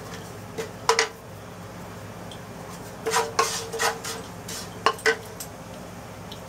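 Wooden spatula stirring roasting cumin seeds in a nonstick wok, knocking and scraping against the pan: once about a second in, several times between three and four seconds, and again around five seconds.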